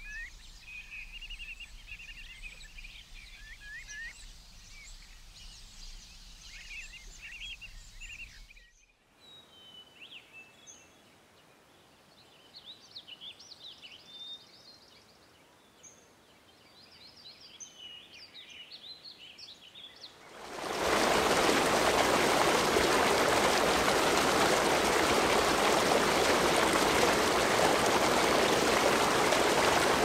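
Songbirds chirping and trilling in a forest, thinning out after a cut about nine seconds in; about twenty seconds in, a loud steady rush of a waterfall splashing into a pool takes over.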